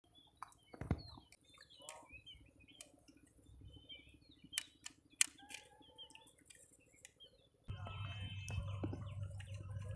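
Birds chirping faintly in scattered short calls, with a few sharp clicks. About three quarters of the way through, a steady low hum with a noisy wash sets in and continues.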